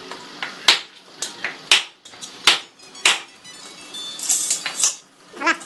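Metal parts and tools clanking and clinking: about six sharp knocks in the first three seconds, then a stretch of light metallic ringing and jingling.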